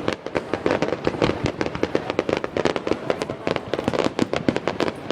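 Fireworks going off in a dense volley of rapid cracks and pops, several a second without a break.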